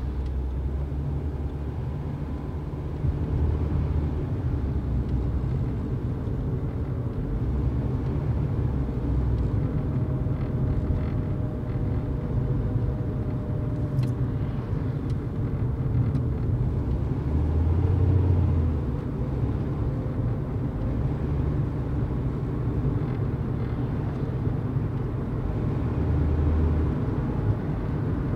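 Car driving on the road: a steady low engine and road rumble, swelling louder a little past halfway and again near the end.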